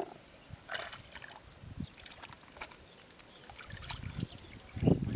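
Hands digging through wet mud and shallow water for freshwater clams: scattered small clicks and drips, then louder squelching and sloshing near the end.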